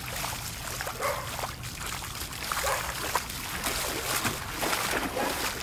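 Footsteps wading through floodwater over pavement, an irregular run of splashes as feet kick through the water.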